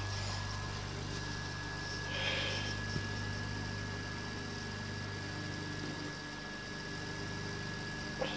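Steady low hum with a thin, steady high tone above it. A brief soft sound comes about two seconds in, and a small tick at three seconds.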